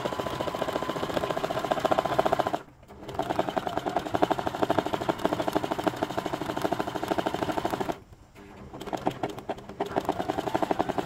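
Domestic sewing machine stitching at speed in a rapid, even run of needle strokes, sewing zigzag stitch for free-motion embroidery. It stops briefly about a third of the way in, then again for about a second near the end before picking back up, slowly at first.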